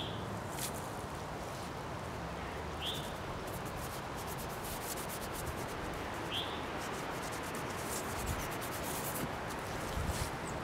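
Paintbrush scrubbing and rubbing paint across a canvas in quick, scratchy strokes, thickest in the middle.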